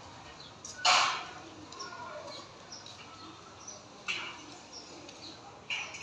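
Dog giving short, sharp yips: a loud one about a second in, then quieter ones near four seconds and near the end.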